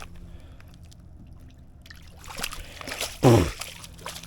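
Water splashing and sloshing as a hooked striped bass thrashes at the surface. About three seconds in there is a short, loud sound that falls in pitch.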